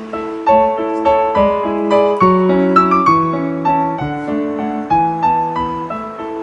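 Background piano music: a melody of single notes, about two a second, over held lower chords.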